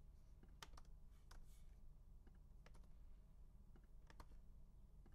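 Faint, scattered keystrokes on a computer keyboard, a few separate taps, over a low steady hum.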